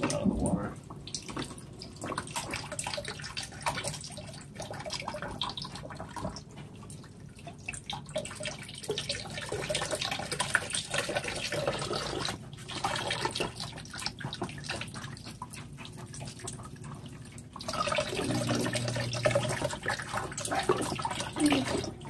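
Water from a small pump-fed vivarium waterfall falling into its glass basin, trickling and splashing unevenly. It gets louder over the last few seconds.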